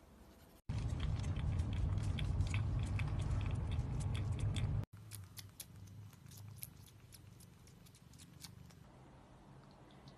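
A loud, low, steady rumble with scattered clicks for about four seconds, cut off abruptly. Then a caracal sucks and nibbles on a person's finger with quiet wet clicks and smacks.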